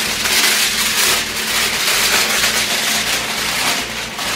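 Aluminium foil crinkling and rustling as it is unrolled and pressed over a ham, a dense continuous crackle.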